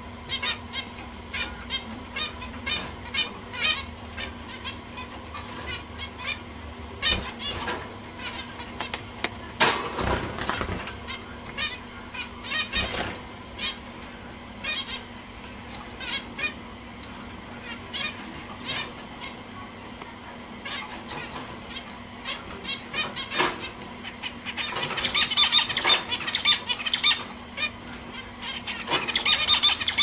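Zebra finches calling: a steady stream of short high calls, several a second, thickening into dense runs of calls about 25 seconds in and again near the end, over a low steady hum.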